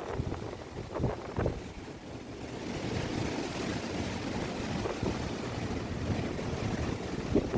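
Strong wind buffeting the microphone: a low rumbling rush, with sharp gusts about a second in, then a steadier blow.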